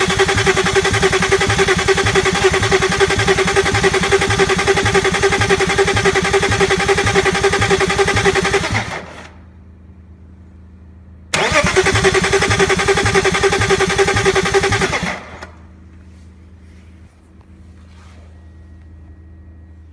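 BMW S52 inline-six turning over on the starter motor without firing: it cranks at an even pace for about nine seconds, stops, then cranks again for about four seconds and never catches. This is a no-start with no fuel and no spark. A faint low hum remains after the cranking stops.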